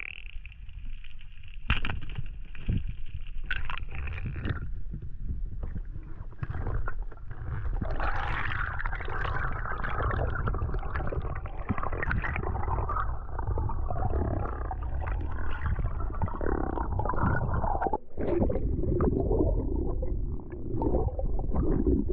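Muffled underwater sound picked up through an action camera's housing on a breath-hold dive: a steady low rumble of moving water with irregular gurgling and crackling, busiest in the middle of the stretch.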